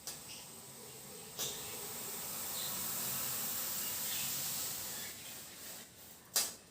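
Soldering iron on a wire joint, the flux sizzling in a steady hiss for a few seconds, with sharp clicks near the start, about a second and a half in, and near the end.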